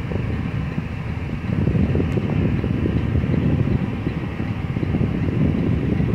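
Low, steady rumble of a semi truck's engine and running noise, heard from inside the cab while the truck moves.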